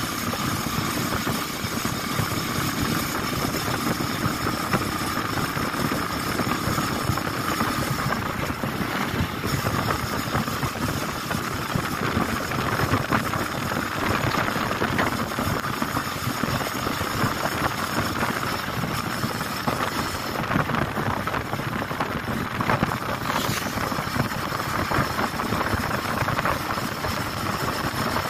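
Motorcycle riding steadily at speed: the engine runs under a continuous rush of wind buffeting the camera's microphone, with no breaks or gear-change surges.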